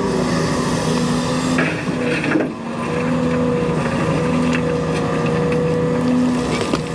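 Caterpillar 335 excavator running steadily, a continuous engine rumble with a whine that wavers slightly in pitch; a brief dip and a short knock about two and a half seconds in.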